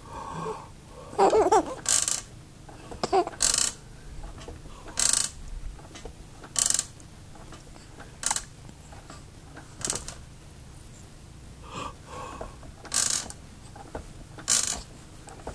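Electric baby swing clicking or whooshing once per swing, about every second and a half, with a short baby vocal sound about a second in.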